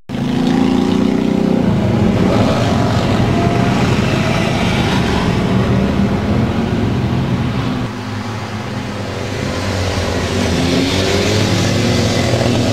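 Motorcycle engines running and revving as bikes and a car pass by on a twisty road, with the sound of the engines rising and falling as they go by.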